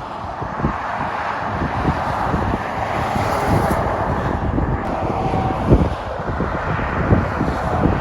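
Motorway traffic passing, a steady rush of tyres and engines that swells a little over the first few seconds, with wind buffeting the microphone.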